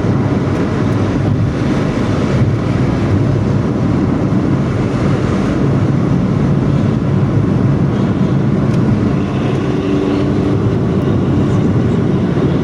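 Front-engined intercity bus running at speed, its growling "ngorok" exhaust giving a loud, steady, deep drone over road noise.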